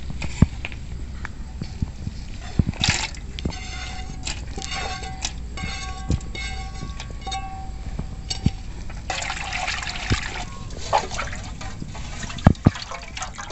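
Boiled snail meat tipped from a pan into a pot of water and washed by hand: small clicks and taps, then water sloshing and splashing, loudest about nine seconds in.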